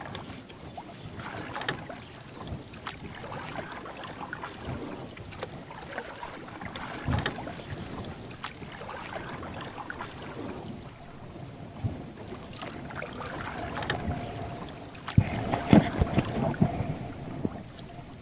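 Kayak paddling: the paddle blades splash in the water and water drips, with scattered knocks and wind on the microphone. A louder run of knocks and splashes comes near the end.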